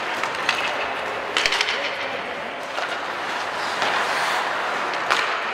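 Ice hockey play on a rink: skate blades scraping the ice and a few sharp clacks of sticks and puck, about half a second in, around a second and a half in, and about five seconds in, over distant voices.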